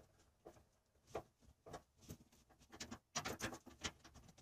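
Faint, irregular clicks and taps of hands working metal plumbing fittings and hose at the base of a tankless water heater, with a quick cluster of louder knocks about three seconds in.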